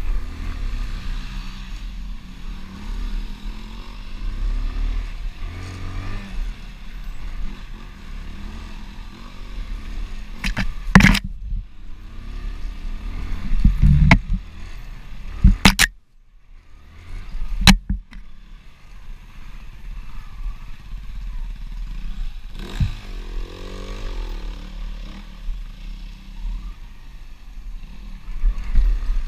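Dirt bike engine running and revving on a rough forest trail, heard from a camera mounted on the rider, with several sharp knocks from bumps in the middle and the engine sound cutting out for a moment about 16 seconds in.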